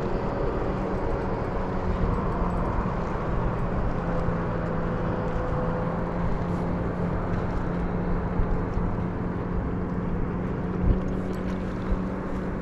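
Steady rumble of road traffic on a highway bridge overhead, with a low hum throughout and a single thump near the end.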